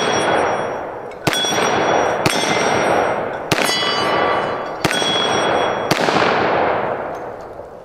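Glock 20 Gen 5 10mm pistol fired five times at an unhurried pace, a little over a second apart. Each shot trails a long echo and the ringing clang of struck steel plates.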